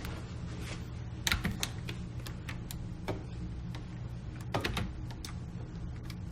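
Computer keyboard and mouse clicks, scattered and irregular, some in quick runs of two or three, over a low steady hum.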